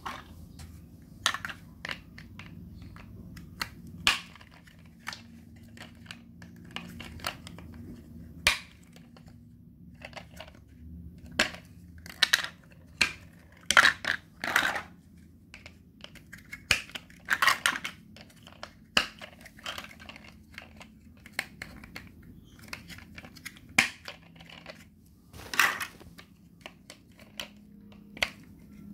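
Large plastic Mega Bloks building blocks clattering and clicking as they are handled and fitted together: irregular knocks and clicks, with louder clusters about 12 to 15 seconds in, around 17 to 18 seconds in, and near 26 seconds in.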